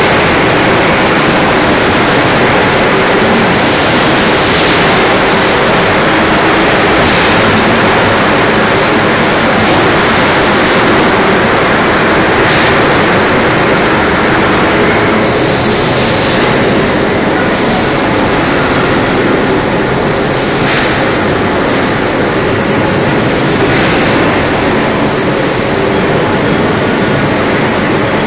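Voronezh AKKB 8046.01 4000-tonne hot forging press running: a loud, steady mechanical noise with a faint low hum, broken every few seconds by a short sharp click or hiss.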